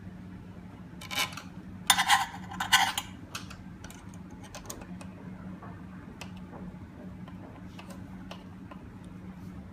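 Hands working on door-lock hardware: light clicks and taps of small metal parts and screws, with two short, louder rasping bursts about one and two seconds in, over a low steady hum.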